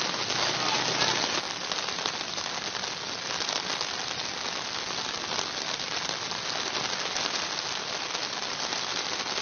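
Heavy rain falling steadily on a flooded street, a dense even hiss of drops.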